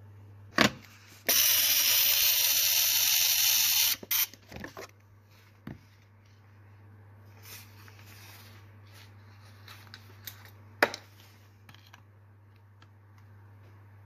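Ford Model T trembler coil buzzing on a coil tester, its vibrator points chattering in an even, loud buzz for nearly three seconds before cutting off; this is the coil being fired to check its current draw. A sharp click comes before the buzz, and a few small clicks and another sharp click follow as the coil is handled.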